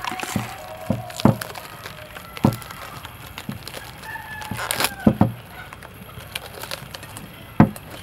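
A rooster crowing, one long call in the first second and a half and another around four to five seconds in, over the crinkle of plastic cling film being peeled off a glass bowl, with several sharp knocks as the bowl is handled, the loudest near the end.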